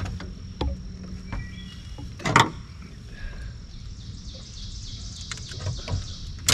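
Lakeside outdoor ambience: a steady high insect drone with a few brief bird chirps, small clicks from handling a fish and hook, and one short louder noise about two seconds in.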